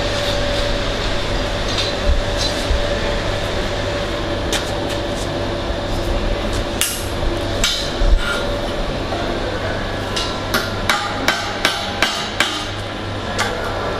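Hammer tapping on a steel pipe elbow to set its fit-up position on the main pipe: sharp metallic knocks, a few scattered at first, then a quicker run of about two or three a second near the end, over a steady workshop hum.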